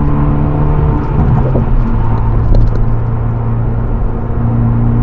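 Hyundai Veloster N's turbocharged 2.0-litre four-cylinder engine running hard, heard from inside the cabin over road and tyre noise. About a second and a half in, the engine note drops to a lower pitch and holds there, as when the manual gearbox is shifted up.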